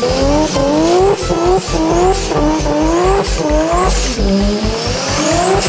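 Synthetic race-car engine sound effect revving in quick repeated climbs, about two a second, each rising in pitch and then dropping back as if through gear shifts.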